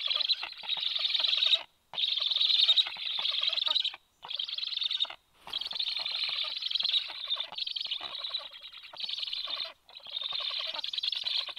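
Black stork nestlings calling close to the microphone: a rapid, rasping chatter in stretches of one to four seconds, broken by a few short pauses.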